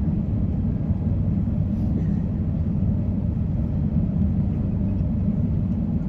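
Steady low rumble heard inside the cabin of an Airbus A350-900 as it taxis on the ground, from its Rolls-Royce Trent XWB engines and the rolling airframe.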